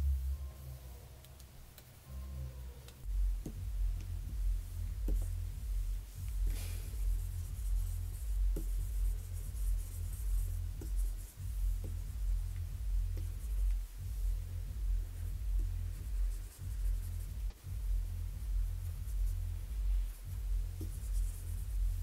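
Stylus nib scratching and tapping on the glass of a Wacom Cintiq 24 Pro pen display as strokes are drawn. A louder low pulsing rumble runs underneath from about three seconds in.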